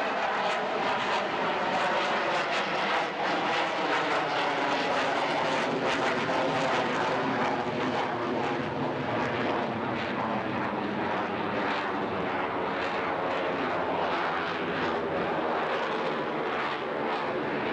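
Twin jet engines of an F/A-18 Hornet fighter flying overhead, a loud continuous rush of jet noise. A tone within it falls in pitch over the first few seconds as the jet passes.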